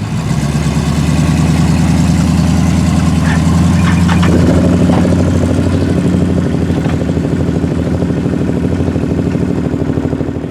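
Truck engine running close by at a steady speed, getting louder just after the start as the wrecker works to turn around; a few short clanks are heard about three to five seconds in.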